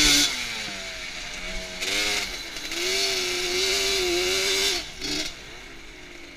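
Yamaha Banshee quad's 350cc two-stroke twin engine: the revs drop sharply as the throttle is let off at the start, then come two bursts of throttle, the second held for about two seconds, and after a short blip it falls back to a low idle near the end.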